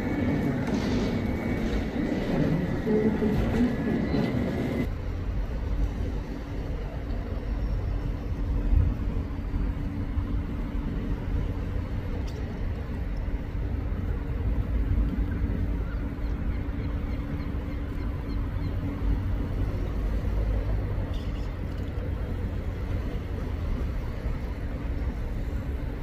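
Train at a station: a low, steady rumble with a constant hum. About five seconds in, a busier sound with a steady high-pitched tone cuts off abruptly.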